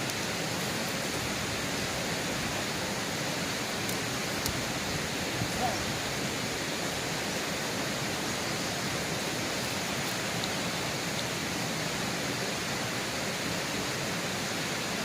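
Steady rush of flowing river water, an even hiss with no change in level.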